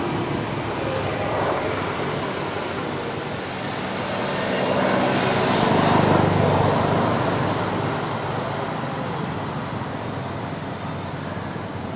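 Steady road-traffic noise, with a vehicle passing that swells and fades, loudest about six seconds in.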